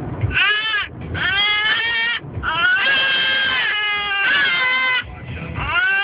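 High-pitched wailing cries, one after another, each rising and then falling in pitch, some drawn out for more than a second.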